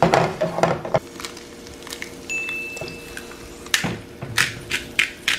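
A plastic spatula scrapes and stirs around a nonstick frying pan during the first second. Near the end a hand pepper grinder is twisted in quick strokes, about three a second.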